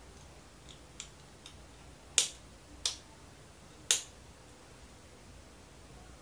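Sharp plastic clicks from a GoPro Hero 8 Black action camera being handled while the battery and memory card are fitted: a couple of faint ticks, then three loud clicks about two, three and four seconds in.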